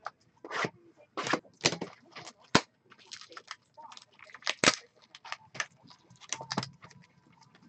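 Plastic shrink-wrap on a trading-card box crinkling and tearing as it is unwrapped, an irregular run of sharp crackles and rustles, the loudest two cracks about two and a half and four and a half seconds in.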